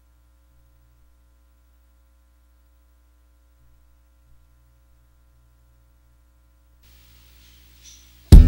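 Near silence with a faint low hum, then guitar music starts abruptly near the end with a loud strum.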